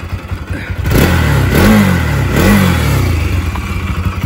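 Bajaj Pulsar AS200's single-cylinder engine idling, then revved twice on the throttle about a second in, each rev rising and falling, before dropping back toward idle. The engine has a newly replaced water pump seal, the fault that had let oil and coolant mix, and new clutch plates.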